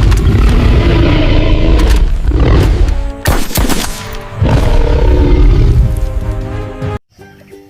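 Loud cinematic intro music with heavy booming rumbles and a short cluster of sharp gunfire-like cracks about three seconds in. It cuts off abruptly near the end, and quieter melodic music starts.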